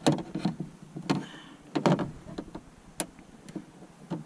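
Scattered sharp clicks and knocks, about eight in four seconds, of a small flathead screwdriver and diagonal cutters working plastic push rivets out of a kayak seat.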